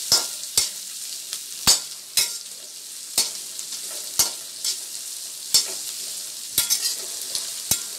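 Vegetables sizzling as they are stir-fried in a metal kadhai, with a metal spatula scraping and knocking against the pan at irregular intervals, about once or twice a second. The vegetables are being sautéed briefly to cook off their rawness.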